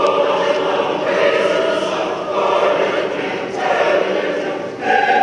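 Mixed church choir singing in harmony, long held chords with a new note coming in every second or so.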